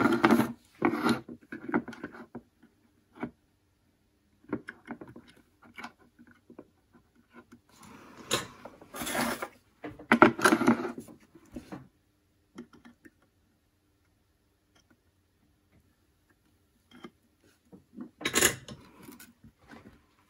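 Handling noise on a workbench: the hardboard panel carrying metal-cased guitar potentiometers and a selector switch is shifted and knocked, and hand tools clink against the parts. The rubbing and clatter come in three short bouts, with scattered small clicks between them.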